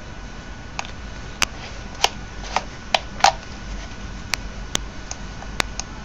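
About ten sharp, irregularly spaced plastic clicks as the handheld fischertechnik Bluetooth controller is handled and its buttons or joysticks worked, over a steady low background hiss.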